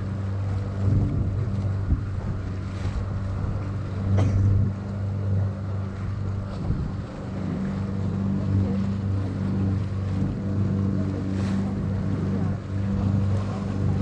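Small tour boat's engine running steadily with a low hum, with water washing along the hull and wind on the microphone.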